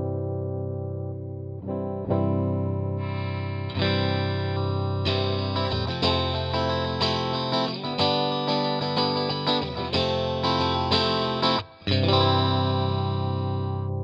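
Fesley ST Strat-style electric guitar played through an amp with a clean tone. A few strummed chords are followed by a quicker run of picked notes; the playing breaks off briefly near the end and then a chord is left ringing.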